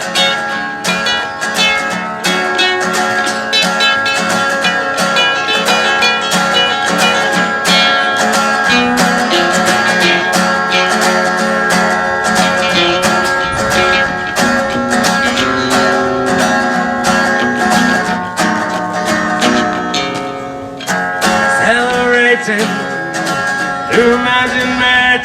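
Acoustic guitars playing an instrumental passage of a song, with fast, even picking throughout; a singing voice comes in near the end.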